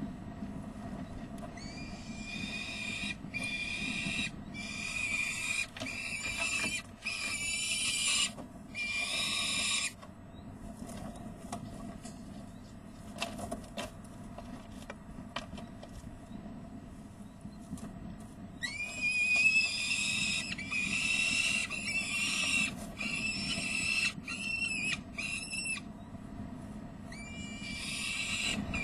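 Adult peregrine falcon giving its alarm call: harsh, grating, drawn-out calls about one a second, in two long bouts with a short burst near the end. It is warning over a fledgling fluttering at the ledge edge. A steady low rumble of wind runs underneath.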